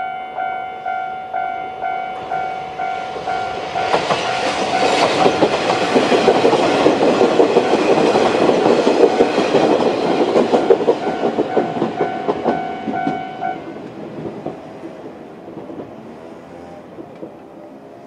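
Japanese level-crossing warning bell ringing about twice a second while a three-car Kominato Railway KiHa 200 diesel railcar train passes over the crossing, its wheels clattering over the rail joints. The bell stops about 13 seconds in and the train sound fades away. Near the end a small motorbike engine rises and falls in pitch.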